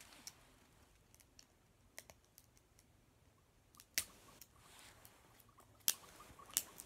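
Scattered sharp clicks and light rustling from hands handling a plastic L.O.L. Surprise toy ball and its paper message card. The loudest clicks come about four seconds in and again near six seconds.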